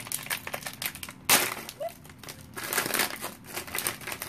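Crinkling foil-and-plastic wrapper of a mystery pin pack being torn open by hand, with irregular crackles and one louder sudden crackle about a second in.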